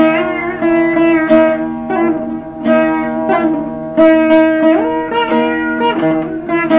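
Saraswati veena playing a Carnatic melody in raga Khamas: plucked notes that slide and bend between pitches, over a steady low drone. It sounds like an old home tape recording.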